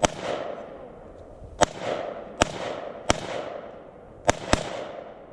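Six gunshots fired at an uneven pace, the last two in quick succession near the end, each followed by a rolling echo.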